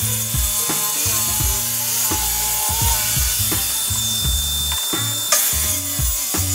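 Circular saw running steadily as it cuts through a laminated board, mixed under background music with a stepped bass line.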